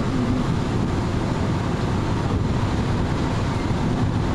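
Steady road and wind noise from a vehicle driving at speed, a constant low rumble with a hiss above it.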